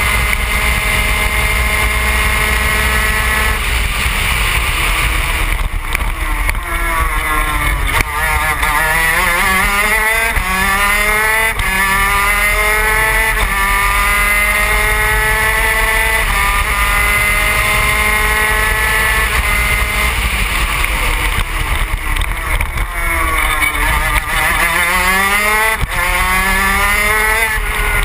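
Yamaha TZ250 two-stroke twin engine of a superkart at racing speed: the pitch climbs through the gears with a short dip at each upshift, drops sharply twice under braking and downshifts, then climbs again.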